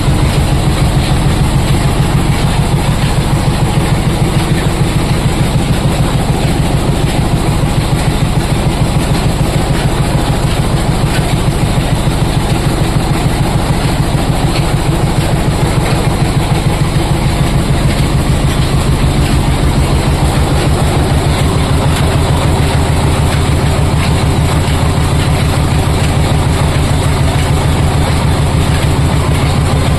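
Oil expeller machine running: a loud, steady, rapid mechanical clatter whose low hum changes character about two-thirds of the way through.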